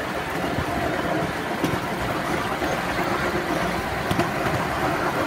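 Running noise of a ride-on miniature train moving along its small-gauge track: a steady rumble and rattle of wheels on rail, with a couple of sharper clicks.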